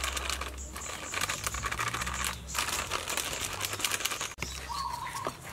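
Crinkling of a plastic packet of crispy flour as it is tipped and shaken out, with the flour pouring into a bowl.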